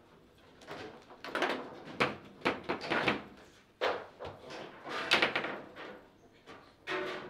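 Table football in play: a run of irregular sharp clacks and knocks as the ball is struck by the rod-mounted figures and bounces around the table, the loudest about two and five seconds in.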